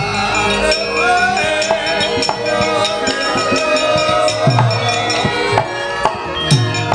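Javanese gamelan playing the accompaniment to a shadow-puppet scene: held ringing tones of metallophones and gongs under frequent sharp percussive strokes. Two deep, falling drum strokes come in the second half.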